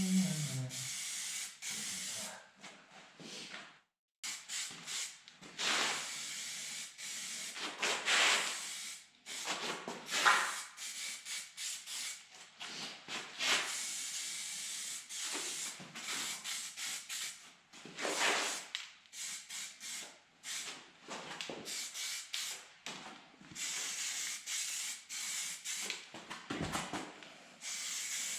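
Paint being sprayed in short, repeated hissing bursts that start and stop every second or two.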